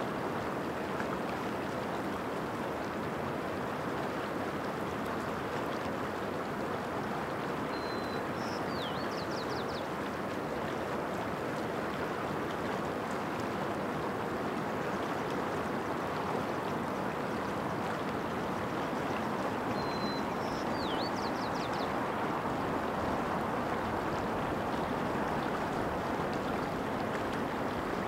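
Steady rushing of a mountain stream. A small bird calls twice, about twelve seconds apart, each time a short high note, a quick swoop and a fast run of notes.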